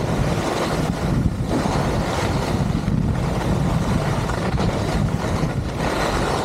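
Steady rush of wind buffeting the microphone, mixed with the hiss of skis sliding over snow, from a fast run down a ski slope.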